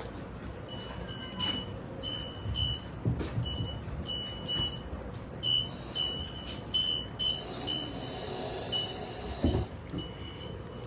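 Stainless steel food bowl ringing in short, same-pitched clinks, two or three a second, as kittens eat from it and their mouths knock the rim, with a few dull low thumps.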